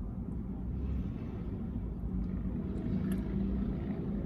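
Low, steady vehicle rumble with a faint hum, heard from inside a car cabin.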